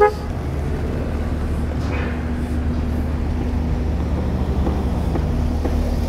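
A vehicle horn gives a short toot right at the start, then steady road-traffic rumble with engines running.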